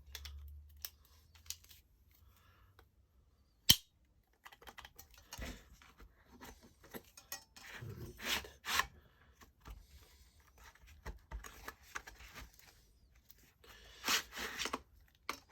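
Handling noise from a folding pruning saw and its sheath with spare blades: scattered clicks, scrapes and rustles, with one sharp click about four seconds in.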